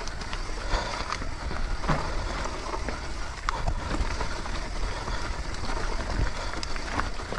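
Trek Slash 7 full-suspension mountain bike descending a steep dirt trail: knobbly tyres rolling over dirt and loose stones under a steady low rumble, with the frame rattling and scattered knocks as it hits rocks and roots.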